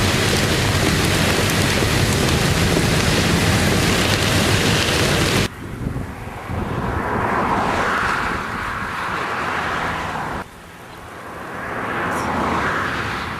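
Strong storm wind gusting and buffeting the microphone. It is loud and steady for about five seconds, then drops off suddenly to gusts that swell and fade, with another sudden drop about ten seconds in.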